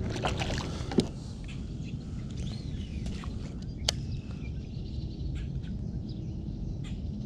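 Steady low rumble of wind on the microphone, with a few sharp clicks and knocks from a baitcasting rod and reel being handled in a plastic kayak; the two loudest knocks come about one second and about four seconds in.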